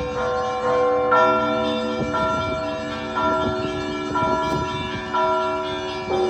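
Orthodox cathedral bells ringing: several bells of different pitch struck in a rhythmic peal, a new strike about once a second over the ringing tones of the others.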